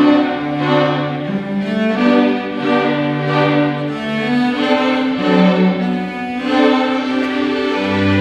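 School string orchestra playing, with cellos and violins bowing held notes that change about once a second.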